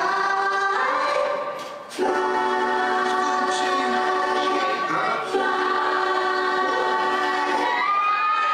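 Choral music: many voices holding long, steady chords that change every two to three seconds.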